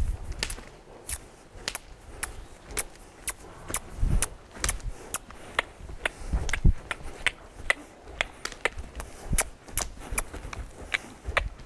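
A horse moving on the lunge over arena sand: its footfalls make irregular sharp clicks, several a second, with a few dull thuds.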